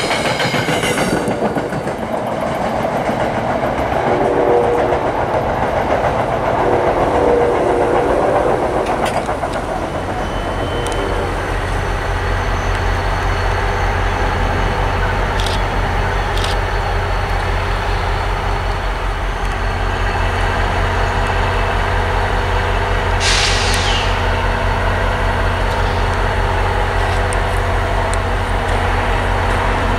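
A diesel passenger train's coaches run past on the rails with a steady rushing rattle. From about ten seconds in, the steady low drone of a diesel locomotive's engine (an NJ Transit GP40PH-2B) takes over, with a brief hiss partway through.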